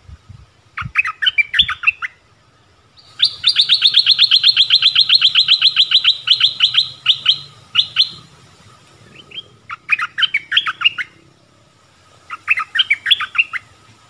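Stripe-throated bulbul song: short bursts of quick chirping notes, and a long fast trill of about nine notes a second lasting some five seconds, a few seconds in. It is a male calling for a mate.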